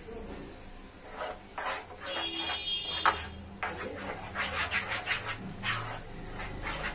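Wooden spoon scraping and stirring a thick paneer and milk-powder mixture around a non-stick kadai in repeated strokes, while the mixture is roasted until it thickens. There is a sharp knock about three seconds in, and the strokes come quicker after that.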